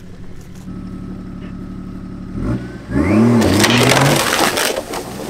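A 4x4's engine (Nissan Patrol) revving as it pulls a fallen tree trunk with a tow strap. From about three seconds in, loud crunching and scraping as the trunk is dragged through branches and over the ground, with the engine pitch rising and falling under load.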